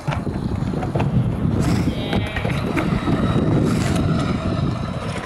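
Stunt scooter wheels rolling over concrete skatepark ramps: a steady low rumble with a few short clacks.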